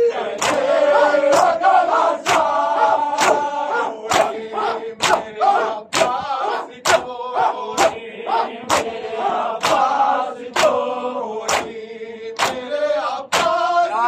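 Men chanting an Urdu noha (Muharram lament) together, with a sharp unison chest-beating (matam) strike about once a second.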